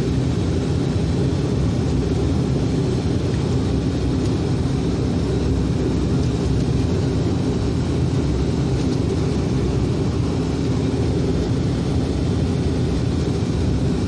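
Steady drone of a turboprop airliner's engines and propellers at taxi power, heard from inside the cabin as the aircraft rolls along the taxiway.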